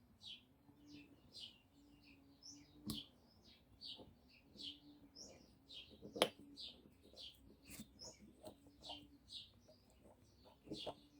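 A small bird chirping over and over, short high chirps at about three a second, over a faint steady hum. Two sharp clicks stand out, about three seconds and about six seconds in.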